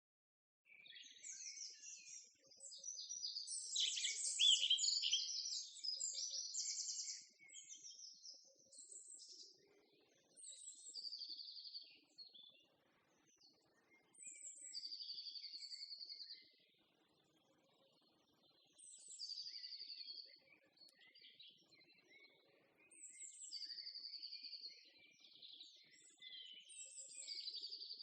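Songbirds singing: a dense run of high chirps and trills for the first several seconds, then single trilled song phrases repeating about every four seconds.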